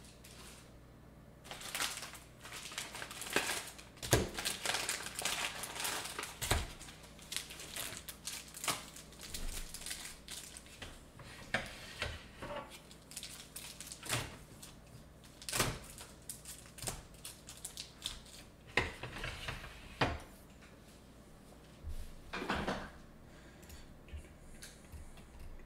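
Irregular clicks, light knocks and rustling as small objects are handled and put away during cleanup, with a cluster of louder clatter partway through.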